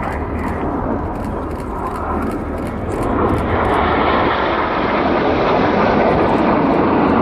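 BAE Hawk T1 jet trainers flying past in an aerobatic display, a rushing jet noise that swells about three seconds in and stays loud.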